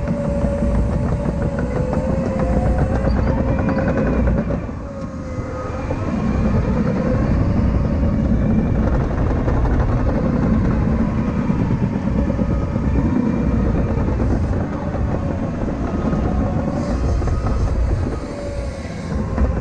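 CAT 953K track loader running under work: a steady, loud machine drone with a whine that wavers up and down in pitch. It eases off briefly about five seconds in and again near the end.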